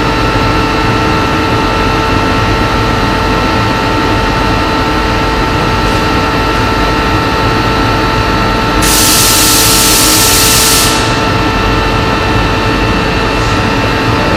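CNC plasma cutter cutting thick steel plate: a loud, steady hissing roar with a steady whine running through it. A louder high hiss joins about nine seconds in and stops about two seconds later.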